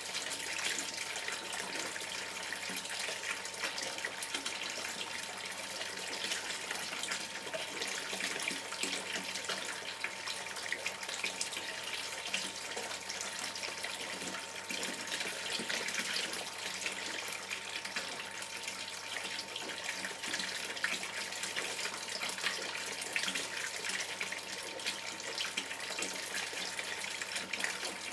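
River water gurgling and bubbling as it runs, a steady rush dotted with small splashes.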